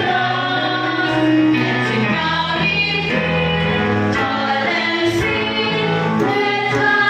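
Worship song sung by a group of voices, women's voices prominent, over musical accompaniment, in long held notes.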